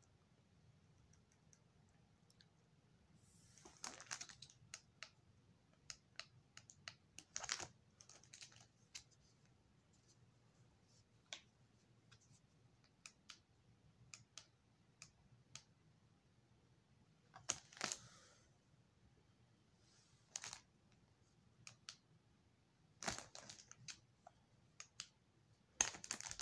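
Faint, irregular clicks and crinkles of plastic-packaged emergency supplies and small plastic lights being handled, with a few short rustles of the packaging.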